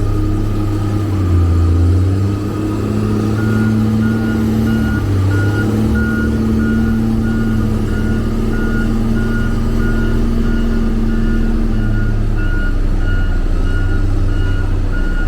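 Diesel engine of a heavy road-building machine running steadily under load, with its reversing alarm starting about three seconds in and beeping at an even pace of roughly one to two beeps a second.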